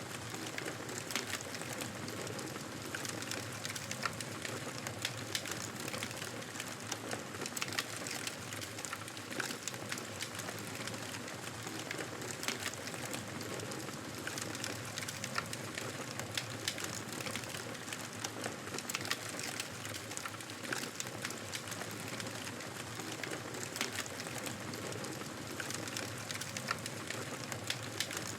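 Wood fire in a fireplace crackling steadily: a constant hiss with frequent small, sharp pops and snaps.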